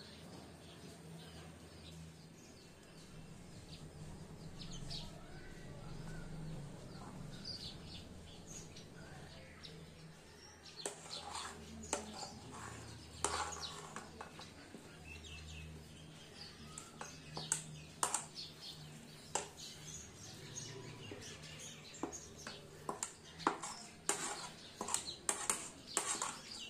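Faint bird chirps over a low hum, then, about halfway through, a metal spoon scraping and tapping against a plate in quick irregular clicks as chopped vegetables are pushed off it into a bowl. The clicks come thicker toward the end.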